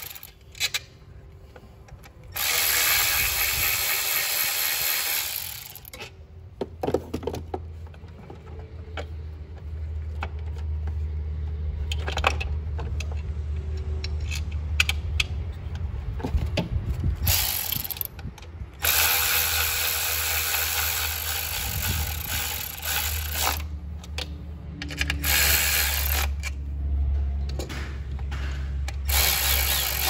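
Milwaukee cordless ratchet running in several runs of a few seconds each on the 8mm bolts of the ignition coil pack. Between runs come sharp clicks and rattles as the plug wires and coil are handled.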